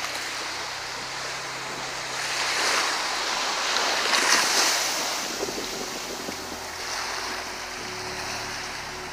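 Ocean surf breaking and washing up a sandy beach; the wash swells to its loudest about four seconds in, then eases.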